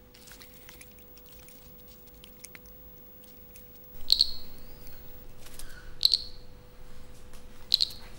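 Small frog calling: short, high chirps repeated about every two seconds, starting about four seconds in, over a faint steady hum.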